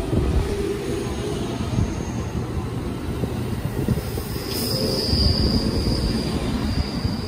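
JR Central 373 series electric train running past on the rails, a steady low rumble of wheels and running gear. A high squeal joins about four seconds in and holds for a few seconds.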